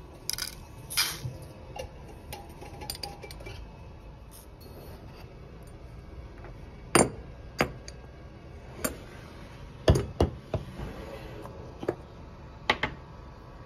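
A metal spoon clinking and tapping against a ribbed glass coffee jar and its glass lid while instant coffee granules are spooned into a paper cup. There are several sharp, irregular clinks, the loudest in the second half.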